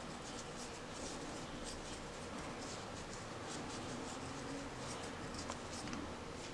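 Faint scratching and rustling of a crochet hook drawing cotton yarn through stitches, in short strokes about two or three a second.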